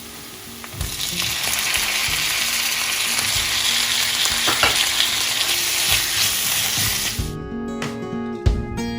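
Food sizzling loudly in hot oil in a pan, with stirring. The sizzle jumps up about a second in, and background music takes over near the end.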